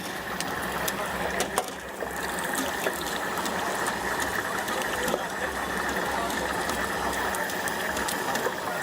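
Stinky tofu deep-frying in hot oil: a steady sizzle with scattered small crackles.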